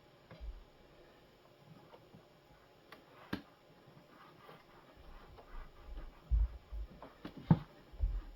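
Scattered small clicks and taps of plastic coffee-machine valve parts being handled and screwed back together, with dull low bumps in the second half.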